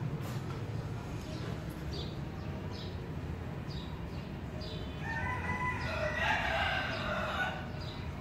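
A rooster crowing once, starting about five seconds in and lasting over two seconds, over a low steady hum and a few short high chirps.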